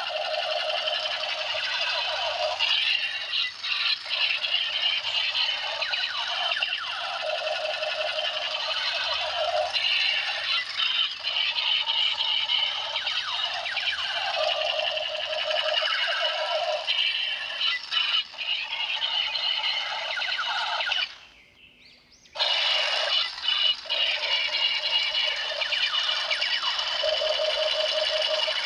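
Tinny, music-like electronic sound effects from a toy's small built-in speaker, with shifting pitched tones and no bass. It cuts out for about a second some 21 seconds in, then starts again.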